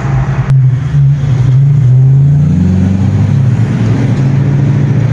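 Fox-body Ford Mustang notchback's V8 exhaust, through Flowmaster mufflers, as the car accelerates; the engine note climbs in pitch about two seconds in, then holds steady.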